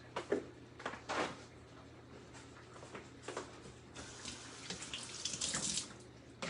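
Water running from a tap into a sink, starting about four seconds in, after a few light knocks and clatters.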